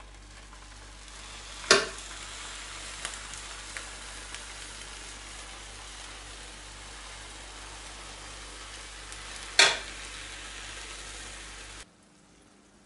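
Lukewarm sugar syrup poured from a steel pot over hot, just-baked pastries in a glass baking dish, hissing and sizzling steadily as it hits them. Two sharp clicks, about two seconds in and near ten seconds in, and the sound cuts off suddenly near the end.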